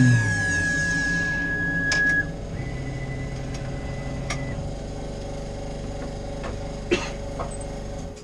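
Tormach 440 CNC mill's spindle spinning down at the end of a cut, its whine falling away in pitch. Then the axis motors whine steadily for a few seconds as the machine traverses to its end position, with a few sharp clicks.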